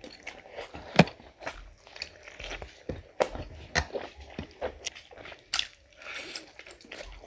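Close-up eating sounds of people biting and chewing food eaten by hand: irregular sharp bite clicks, the loudest about a second in, with moist chewing noises between them.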